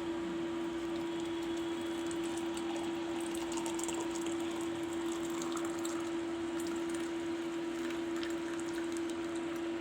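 Hot kashayam being strained and poured, with faint liquid trickling and dripping, under a loud steady hum on one tone.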